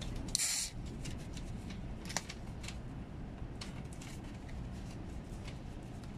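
Beer can pull-tab cracked open with a short hiss about half a second in, over the steady low rumble of a shinkansen carriage; a single sharp click follows about two seconds in.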